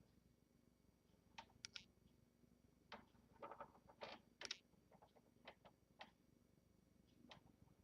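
Faint, sharp mechanical clicks from a 1960 Olympia SM4 manual typewriter, about a dozen at uneven spacing, some close together around the middle.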